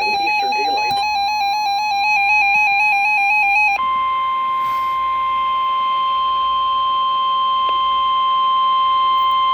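NOAA Weather Radio warning alarm tone, a steady high electronic tone near 1050 Hz that starts about a second in and is held until it cuts off at the end. A trilling electronic alert tone plays over it at first and stops about four seconds in.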